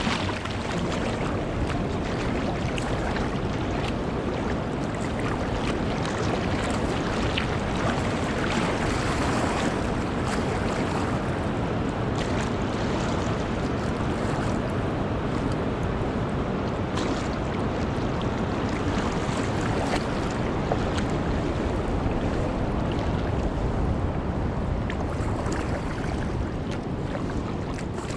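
Steady rush of water and wind noise on the microphone from a kayak moving down a river, with a few faint splashes scattered through it.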